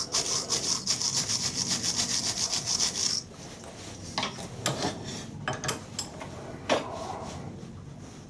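A hand tool scrubbing the aluminium air-conditioning pipe with rapid, even back-and-forth strokes, about five a second, which stop about three seconds in. After that come a few scattered clicks and knocks of handling.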